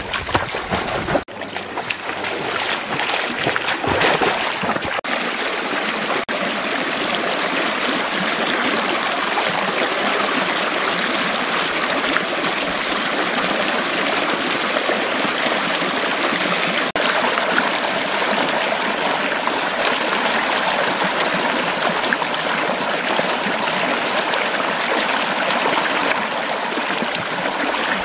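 Shallow stream rushing and splashing over rocks, a steady rush of water. For the first few seconds, feet wading through the stream add splashes.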